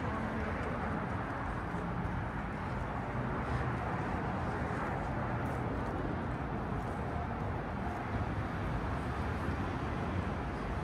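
Steady city street noise: traffic on a busy boulevard blending with the hubbub of a crowded sidewalk.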